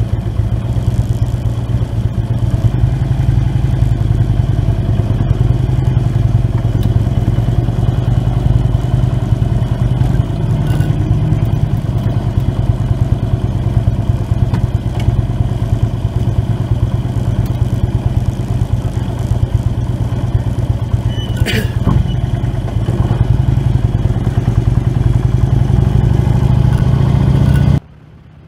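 Harley-Davidson Road King's V-twin engine running at a steady speed, a deep low rumble heard close up from the bike, with a brief sharp clatter a little past the middle. It cuts off suddenly near the end.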